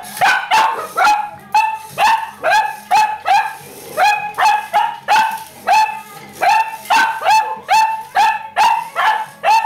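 Cavalier King Charles Spaniel barking without pause, about two sharp barks a second, in alarm at a small toy car that frightens her.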